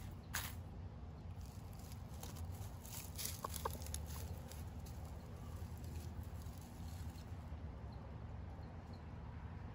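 Silkie chicken giving two short, soft clucks about three and a half seconds in, with a few faint crackles before them.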